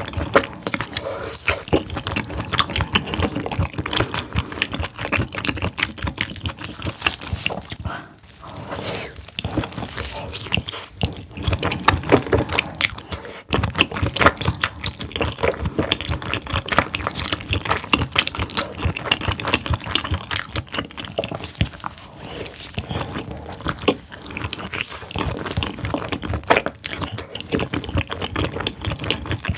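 Close-miked chewing of a whole steamed squid with its innards: wet, sticky mouth sounds, dense with small rapid clicks.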